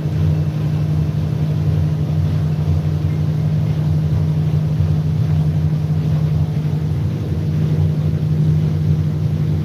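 Engine of a fast motorboat running steadily at high speed, a constant deep hum with no change in pitch.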